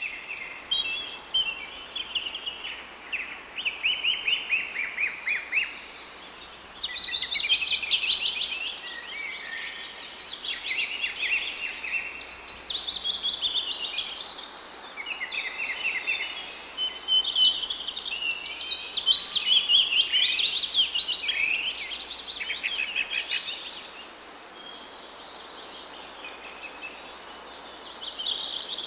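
Several songbirds singing at once: overlapping rapid trills and chirps, busiest in the middle and thinning near the end.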